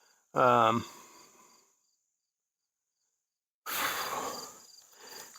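A man's brief vocal sound just after the start, then the sound drops out completely for about two seconds, then about a second of heavy breathing close to the microphone. Crickets chirp faintly.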